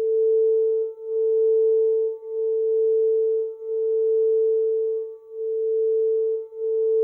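Quartz crystal singing bowl sounding one sustained pure tone with a faint higher overtone. The tone pulses, dipping and swelling again roughly every second or so.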